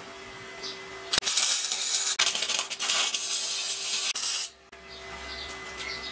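Arc welding: a loud, steady crackling hiss starts about a second in and cuts off sharply about four and a half seconds in as the arc is broken, while a bead is run on a steel rod.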